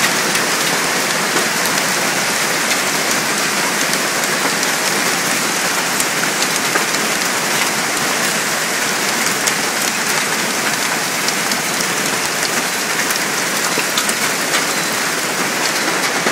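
Heavy hailstorm: a dense, steady patter of hail and rain coming down, scattered with sharp ticks of individual hailstones striking.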